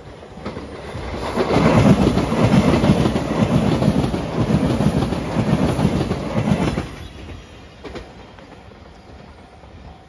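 A five-car electric limited express train passing close by, its wheels rumbling and clacking over the rail joints, swelling in about a second and then cutting off suddenly around seven seconds in. A level-crossing bell rings faintly near the end.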